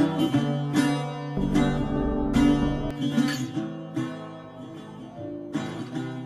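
Background music led by acoustic guitar: plucked and strummed chords, with a low bass note for a moment near the middle.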